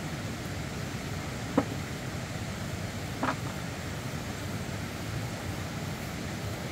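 Steady low background noise like wind or distant traffic, with two short, sharp knocks about a second and a half apart, each with a brief ring.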